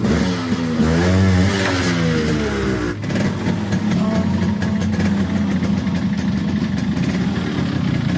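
Yamaha RXZ's single-cylinder two-stroke engine being revved, its pitch rising and falling several times. About three seconds in there is an abrupt cut, after which the engine runs steadily with a fast even beat.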